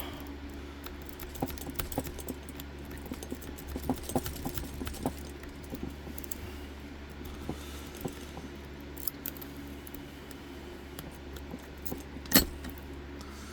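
A lock-picking rake scraping and clicking against the pins inside a Master Lock No. 5 laminated padlock held in a vise, in quick irregular little clicks, with one much louder sharp click near the end.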